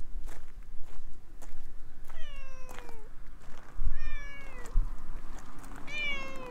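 Orange tabby cat meowing three times, about a second apart, each meow falling in pitch, with a few faint clicks and low thumps between them.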